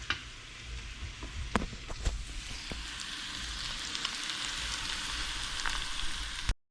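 Hot dog pieces and eggs sizzling in a frying pan, the sizzle growing louder from about three seconds in, with a few sharp clicks in the first two seconds. The sound cuts off suddenly near the end.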